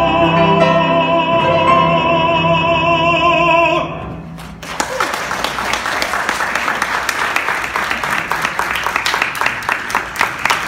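A man's trained, operatic-style voice holds the final note of a song with vibrato over piano chords, and it stops about four seconds in. Then an audience applauds steadily.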